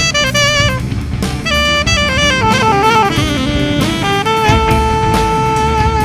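Live band playing an instrumental passage: a lead instrument plays a quick run of notes, then holds one long note from about four seconds in, over drums and bass.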